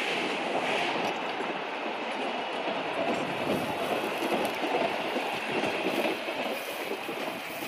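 Vintage passenger coaches rolling past close by, their steel wheels running steadily on the rails, easing off slightly as the last coach goes by near the end.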